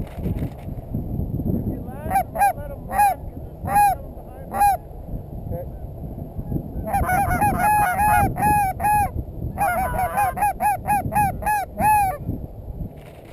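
Goose honks, loud and close: a few spaced single honks, then two fast runs of quick honks and clucks. A low rumble of wind noise sits under them.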